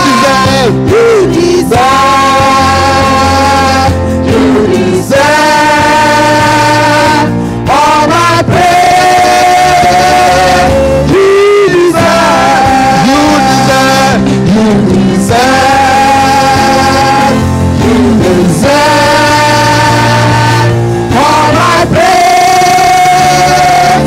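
Live gospel praise-and-worship music: voices hold long, drawn-out notes in phrases a few seconds apart over a band with a steady bass.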